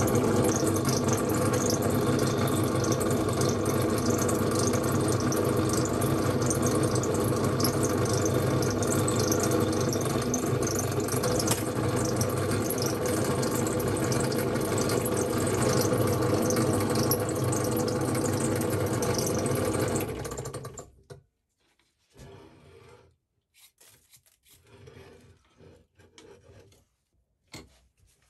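Bench pillar drill running, its twist bit cutting into a solid steel block and throwing off swarf, with a steady motor hum under the cutting noise. The drill stops about 20 seconds in.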